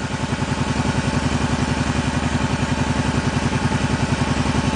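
An engine idling steadily, with an even, fast low pulsing that does not change.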